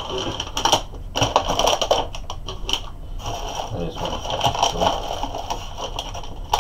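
Parts being packed into a polystyrene foam packaging tray by hand: irregular rustling, scraping and crinkling of foam and plastic wrapping, in short bursts.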